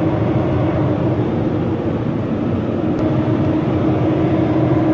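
Sinotruk truck's diesel engine running steadily, heard from inside the cab as an even hum over a low rumble.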